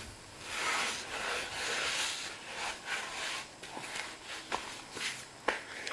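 Rubbing and scuffing, with a few light clicks about two-thirds of the way in and near the end.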